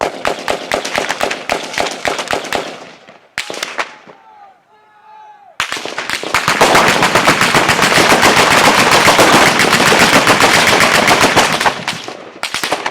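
Automatic gunfire in rapid bursts. After a short lull about four seconds in, heavy, near-continuous firing resumes for about six seconds.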